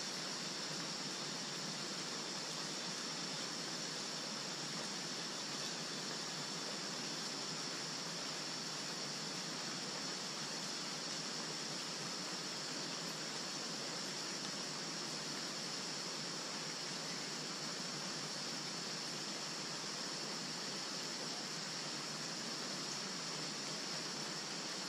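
Steady, even background hiss with no distinct events, brightest high up.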